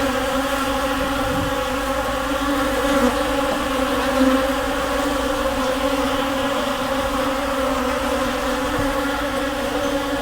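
Swarm of bees buzzing in a steady, unbroken hum.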